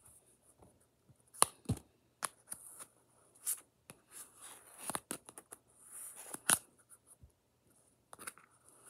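Stiff kinetic sand being dug and scraped out of a plastic tub with scissors: irregular crunchy scrapes and sharp clicks of the blades against the plastic, the loudest about a second and a half in and again past six seconds.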